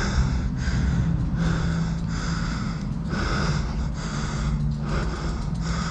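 A man breathing hard and fast close to the microphone, quick breaths in and out about one and a half times a second: out of breath from pushing a dirt-jump bike uphill. A steady low hum runs underneath.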